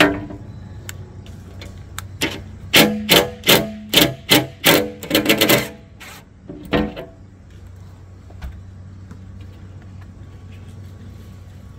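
Cordless DeWalt impact driver run in a string of short trigger bursts about a third of a second apart, then one more a second later, backing out the Torx screws that hold the rear lift glass of a Jeep Grand Cherokee WJ.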